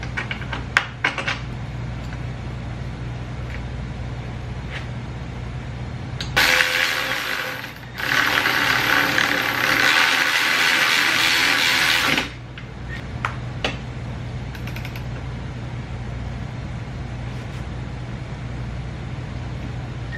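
Milwaukee M12 cordless ratchet running a bolt tight on an electric scooter's rear swingarm, in two spells: about a second and a half, then after a short pause about four seconds. Light metal clicks of the bolt being handled come about a second in, over a steady low hum.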